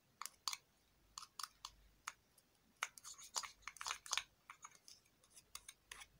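Small spoon stirring a thick green cosmetic paste in a small cup: faint, irregular clicks and wet scrapes against the cup's sides as the paste is worked with water until it turns creamy.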